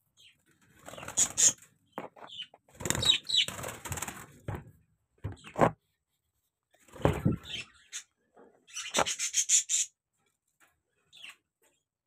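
Rustling and knocking from a budgie breeding cage and its clay nest pots being handled, with short budgie chirps. A quick burst of fluttering comes about nine seconds in.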